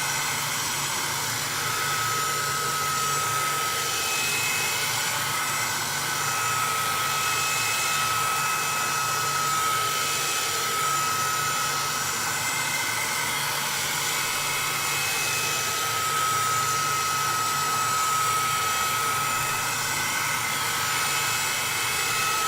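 1200-watt hair dryer running steadily: an even rush of blowing air with a thin, steady motor whine.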